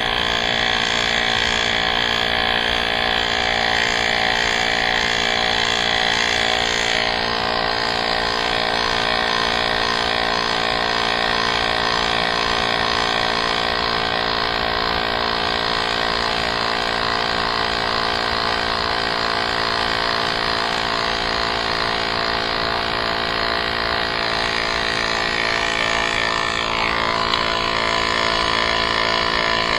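A small motor running with a steady hum made of many tones, shifting slightly in pitch about a quarter of the way in and again near the end.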